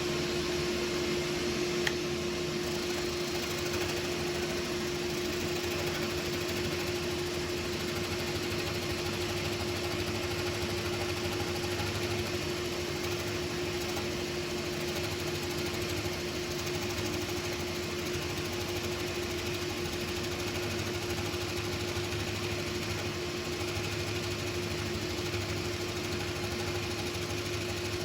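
Scroll saw running steadily with a constant hum, its blade cutting a compound cut through a thick wooden block.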